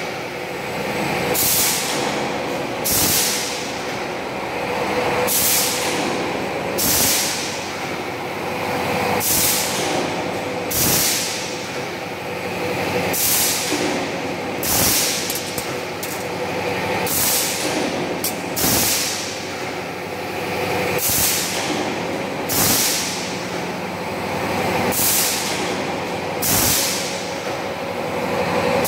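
DIN rail roll forming machine running with a steady mechanical hum. Over it the cut-off press cycles, each stroke a short sharp hiss with a knock, coming in pairs about a second and a half apart, a new pair about every four seconds.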